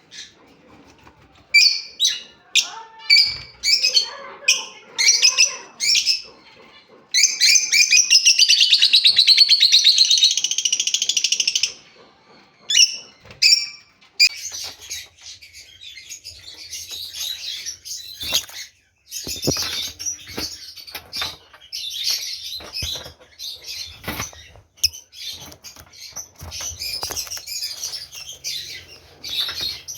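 Small pet parrots calling: a run of sharp separate calls, then one loud, rapid chattering call lasting about four seconds, and from about halfway through a steady dense chatter of many birds.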